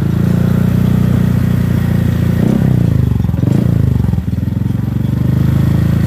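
Honda PCX 150 scooter idling steadily through a Robi1 aftermarket muffler, the exhaust note soft and smooth rather than deep and bassy. The softness comes from the muffler's glasswool packing having blown out and its inner baffle having come loose.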